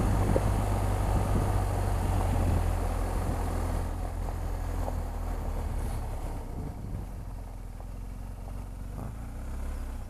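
BMW R1250 GS boxer-twin motorcycle engine running at low speed, with tyre and road noise from a gravel road. The engine and road noise ease off gradually as the bike slows to a crawl.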